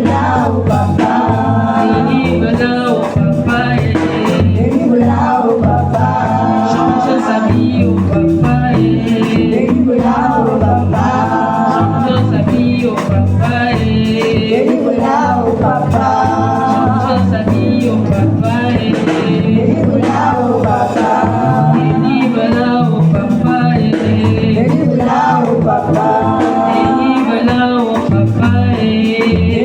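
Gospel worship song: voices singing phrase after phrase over a steady bass accompaniment and light, regular percussion.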